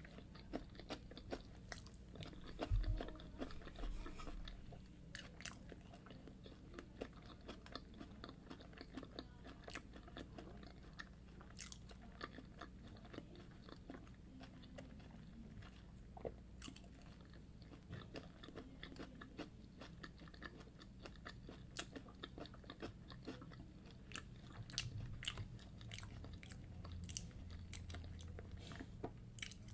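Close-miked chewing of fried yam and egg sauce, with many small mouth clicks and soft bites scattered throughout.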